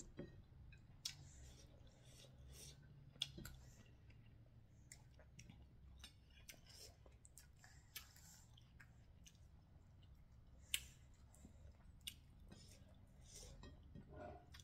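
Faint chewing and mouth smacks from eating, with a few sharp clicks and taps scattered through, the loudest about eleven seconds in.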